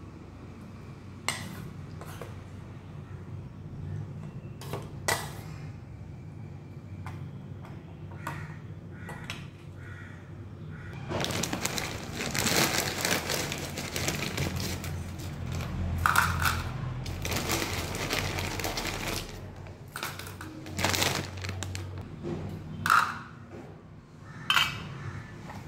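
A metal spoon clinks against stainless-steel lunch-box bowls, and containers knock on the counter as food is served, in scattered sharp taps. A longer stretch of handling noise fills the middle.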